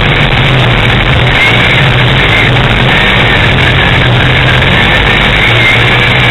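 Race car engine running hard at racing speed, heard on board the car, loud and overdriven.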